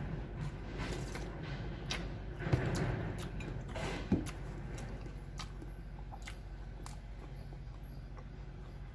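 Close mouth sounds of eating: many small wet clicks of chewing and lip-smacking on a bread sandwich, with a drink from a can near the start and a single knock about four seconds in.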